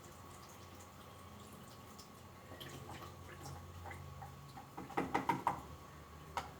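Liquid dripping and trickling faintly as fabric softener is poured into the washing machine's dispenser, with a cluster of louder plastic clicks and knocks about five seconds in.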